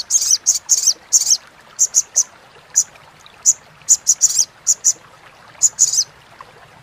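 Olive-backed sunbird (sogon) giving its 'crecetan' call: short, sharp, high-pitched chips, several in quick clusters with brief pauses between them.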